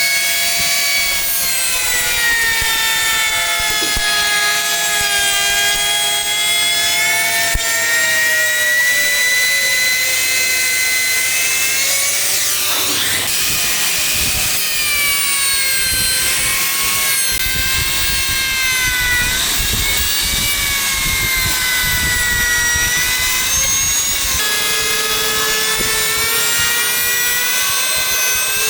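High-speed electric power tool working wood, its motor whining steadily with the pitch dipping and recovering every few seconds as it is loaded and eased off.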